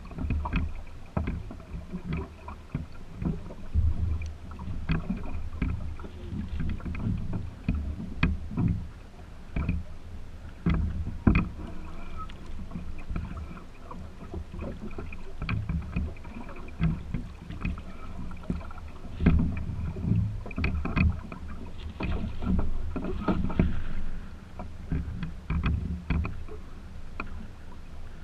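Small waves slapping and knocking against a small wooden sailboat's hull under way: irregular low thumps every second or two, with sharper knocks among them.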